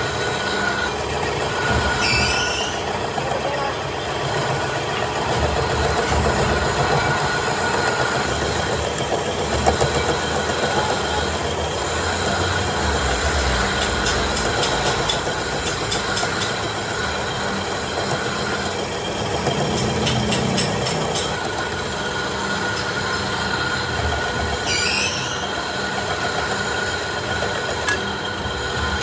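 Metal lathe turning a steel PTO shaft part, the cutting tool shaving its spinning outer surface: a steady machine drone with a held high whine. Near the start and again near the end there are short squeaks, and in the middle there are bursts of light clicking.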